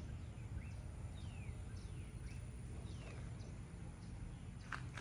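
Birds calling outdoors: short whistled notes, each falling in pitch, repeated about twice a second over a low, steady background noise. A few sharp clicks come near the end.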